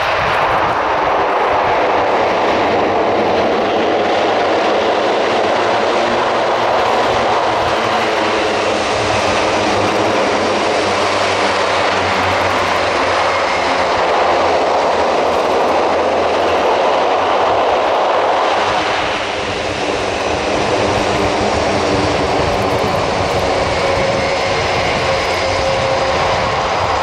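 The four TP400 turboprop engines of an Airbus A400M running with their eight-bladed propellers turning as the aircraft moves along the runway: a loud, steady drone that dips briefly about two-thirds of the way through.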